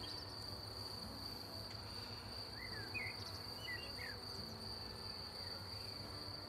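Honeybees buzzing faintly around an open hive under a steady, high-pitched insect trill, with a few short chirps near the middle.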